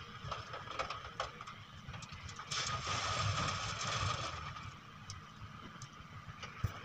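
Doosan DX140W wheeled excavator working at a distance, its diesel engine running with a steady low rumble and hum. A louder rushing, clattering stretch comes a little over halfway through, with a few scattered knocks.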